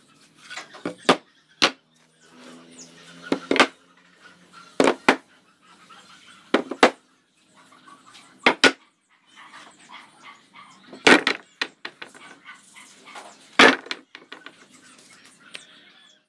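Solid wooden boards knocking and clacking against each other and the table as they are set down and shifted, about eight sharp knocks at irregular intervals with softer scraping and handling noise between them.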